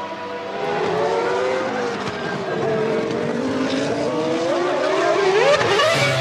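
Formula One V10 engines running at high revs, several at once, their pitch dipping in the middle and then climbing steeply near the end as a car accelerates hard.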